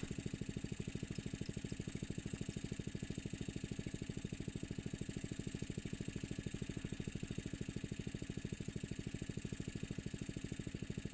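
A small engine running steadily with a fast, even putter, and a steady high hiss above it.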